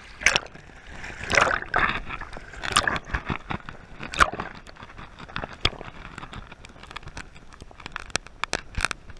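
Choppy shallow seawater sloshing and gurgling around an action camera at and just below the waterline, with frequent sharp clicks and crackles and a few louder swishes.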